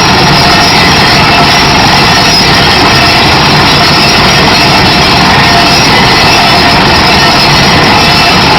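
Kaishan KW20 water well drilling rig running, a loud, steady, unbroken machine noise.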